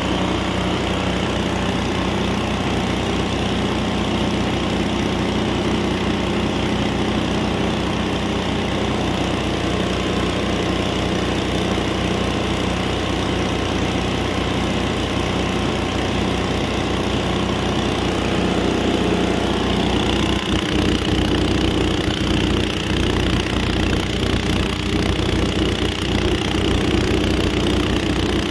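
Motor-driven grinding machine running with a continuous machine hum. About twenty seconds in the sound shifts and gets slightly louder.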